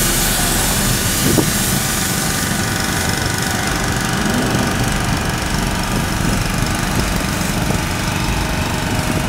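Gas-powered pressure washer running steadily: a small engine rumbling under the hiss of the water spray.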